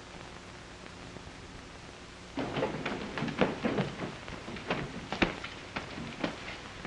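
Steady hiss of an old film soundtrack. From about two and a half seconds in come a run of irregular rustles and light knocks.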